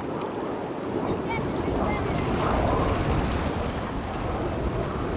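Wind buffeting the microphone: a steady low rumble that swells a little about halfway through, with a few faint high chirps.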